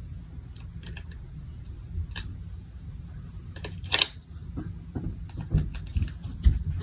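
Light clicks and taps of hands handling a small bracelet box, with one sharper click about four seconds in, over a low steady hum.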